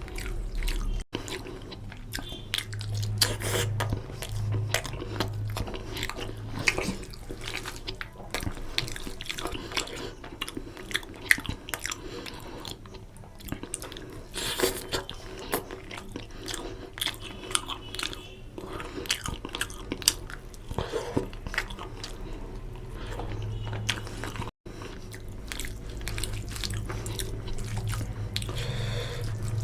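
Close-miked eating of rohu fish curry with rice: continuous wet chewing, mouth smacks and bites with irregular clicks.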